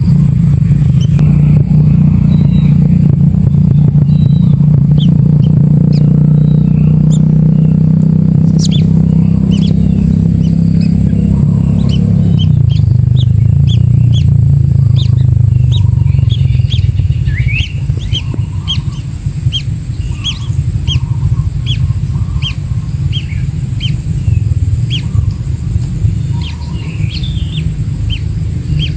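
Short high bird chirps repeating about once a second, plainest in the second half, over a loud low drone that eases off about twelve seconds in.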